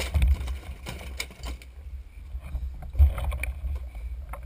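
Low uneven rumbling of wind and handling on a head-mounted camera as a diver climbs aboard a boat with a speargun, swelling just after the start and again about three seconds in, with a few light knocks of gear against the boat.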